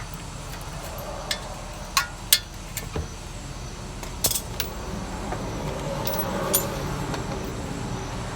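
Scattered light metal clinks and clicks of hand tools working a cotter pin out of a ball joint nut, over a steady low hum.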